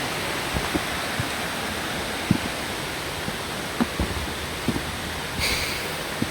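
Steady rush of a rainforest creek flowing over rocks, with scattered soft knocks through it and a brief high sound a little over five seconds in.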